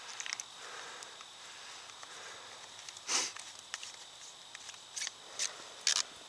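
Quiet handling sounds while a chainsaw is refuelled: a few short scrapes and clicks from the fuel can and filler cap, about halfway through and again near the end, over a faint steady high tone.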